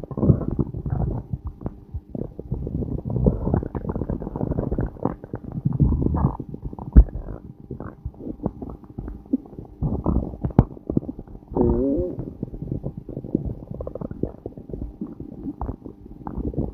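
Human stomach growling and gurgling without a break, full of small pops and clicks. A sharp pop, the loudest sound, comes about seven seconds in, and a short, wavering, pitched growl comes about two-thirds of the way through.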